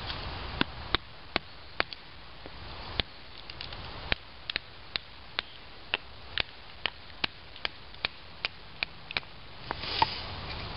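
A wooden baton knocking on the spine of a knife driven into a cedar split: batoning, sharp knocks about two a second with a short pause partway. Near the end comes the loudest crack as the cedar splits apart.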